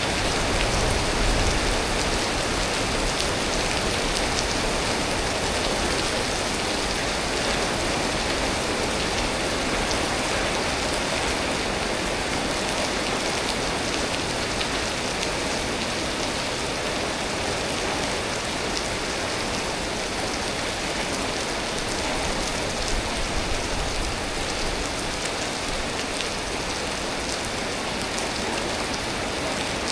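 Steady storm rain falling: an even hiss with a fine patter of drops.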